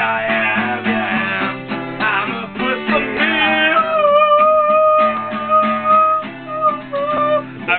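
Acoustic guitar strummed with a man singing, holding one long note through the middle.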